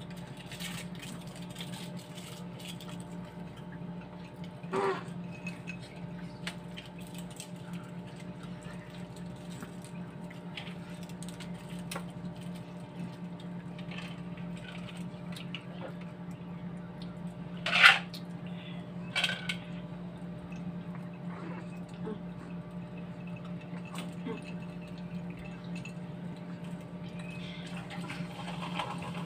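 Tableside eating sounds: chopsticks and utensils clicking lightly against bowls and dishes, with a few louder knocks, the loudest about eighteen seconds in, over a steady low hum.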